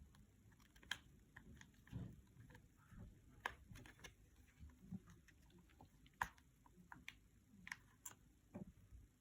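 Faint, scattered plastic clicks and taps of a mobile phone being handled on a bench, about one or two a second at irregular spacing.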